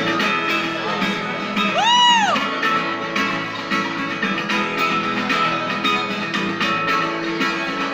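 Instrumental stretch of a song: guitar playing, with one short note that swoops up and back down about two seconds in.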